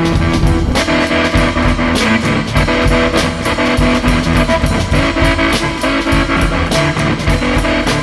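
Instrumental rock music: guitars over bass and drums, with no singing.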